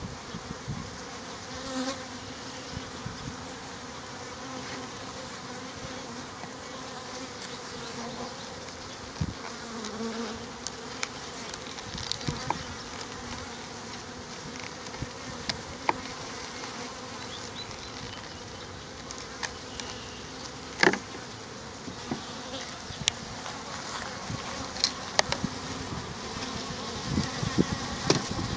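A shipped package of honeybees buzzing steadily as a mass, with scattered clicks and knocks from handling the box.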